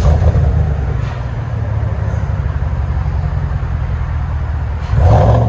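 2019 GMC Sierra Denali's 6.2-litre V8, muffler deleted with 3-inch pipe but resonators and factory converter kept, firing up with a sudden loud flare and settling into a deep, steady idle rumble. About five seconds in it swells briefly louder again.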